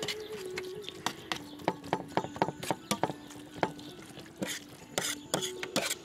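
A fork stirring a wet chopped roasted-vegetable salad in a large shallow metal tray, clinking and scraping against the metal again and again at an uneven pace.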